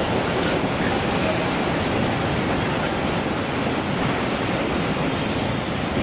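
Freight train of open high-sided goods wagons rolling past close by: a steady, loud noise of steel wheels running on the rails, with a thin high squeal over it from about two seconds in.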